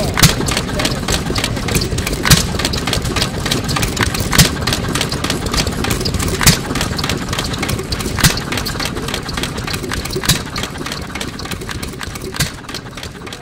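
ARCO Type GH 2 hp hit-and-miss engine running: a louder firing stroke about every two seconds, with a fast, steady clatter of its valve gear and moving parts while it coasts between firings. This is the hit-and-miss governor at work: the engine fires only when its speed drops, and holds the exhaust valve open while it coasts. The sound fades out near the end.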